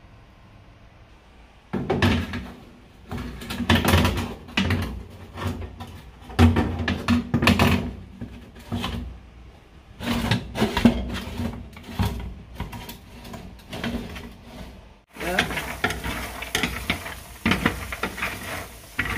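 Knocks and clatter of a metal baking tray being handled and set into an oven, over a low steady hum. About fifteen seconds in the sound changes suddenly to a steady sizzling hiss with many small crackles: washed peanuts roasting on the hot tray.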